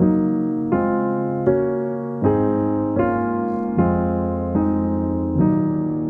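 Slow piano background music, a new note or chord struck about every three-quarters of a second and fading before the next.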